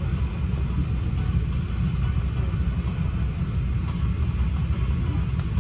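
Steady low rumble inside the cabin of a Boeing 777-200ER airliner on the ground before takeoff, with a few faint ticks.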